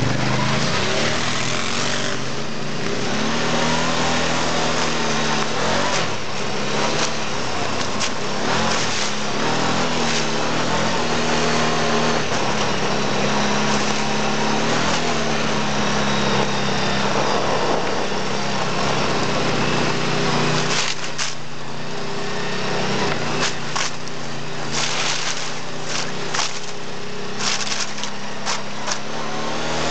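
Can-Am Renegade quad bike engine running under load, its pitch rising and falling over and over as the throttle is worked, over a constant rushing noise of the ride. Over the last third a string of sharp knocks and clatters joins in.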